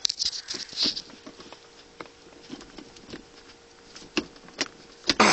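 Shift knob of a 1998–2004 Cadillac Seville being wiggled back and forth and pulled straight up off the shifter: rubbing and scraping, louder in the first second, then a few sharp clicks near the end.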